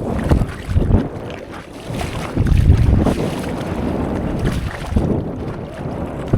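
Wind rumbling on the microphone over sea water splashing, rising and falling in uneven gusts, with a brief lull about two seconds in.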